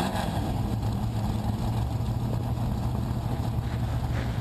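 Several dirt-track stock car engines idling together with a steady, low, even rumble.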